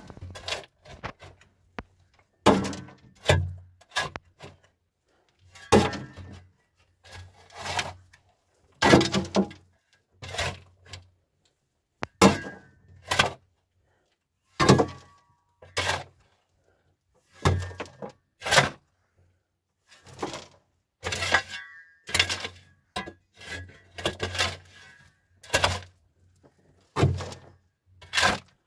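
A series of irregular knocks and thuds, roughly one every second or so, each sharp and short, with a low hum under some of them.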